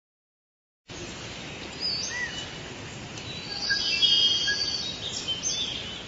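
Forest ambience: several birds chirping and whistling over a steady hiss, starting abruptly about a second in.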